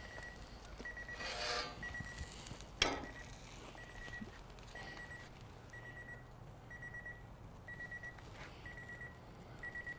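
Electronic cooking alarm beeping: short, high single beeps about once a second, steady and repeating, typical of a grill timer or thermometer alarm going off. A brief rasp a second or so in and a single sharp knock about three seconds in.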